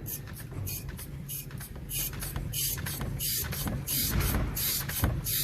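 Short hisses of compressed air, about three a second and getting louder, from the Renault T truck's air system, over the steady low hum of the idling engine.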